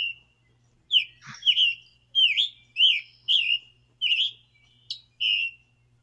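Scarlet tanager singing: a hurried string of short, hoarse, burry phrases, about three every two seconds, like a robin's song with a sore throat.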